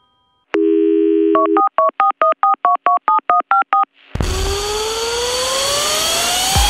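A telephone dial tone for about a second, then about a dozen quick touch-tone keypad beeps as a number is dialled, then a loud whooshing sweep with several tones climbing steadily in pitch.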